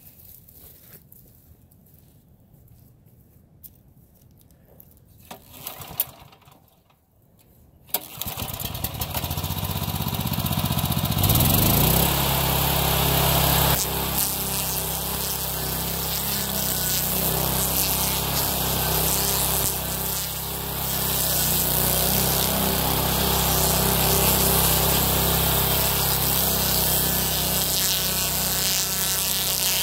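A few faint knocks, then about eight seconds in the homemade stump grinder's Honda GX390 13 hp single-cylinder engine starts, revs up and runs steadily at speed while its M1 Blueshark wheel grinds into a birch stump.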